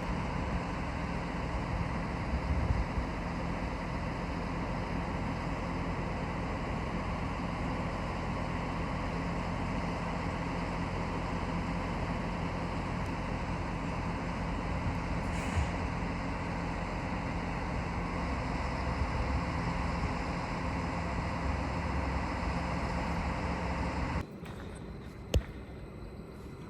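A train at a station platform running steadily with a mechanical hum. The sound drops off abruptly about 24 seconds in, and a single sharp click follows.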